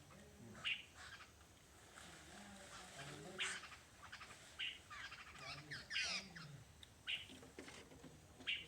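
Jungle babblers calling: short harsh notes about once a second, with a quick run of several calls just after the middle.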